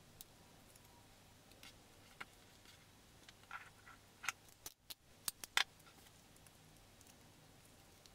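Faint crinkling and clicking of paper being folded by hand. About halfway through, clear adhesive tape is pulled from a plastic tape dispenser and torn off on its cutter: a quick run of sharp clicks and snaps.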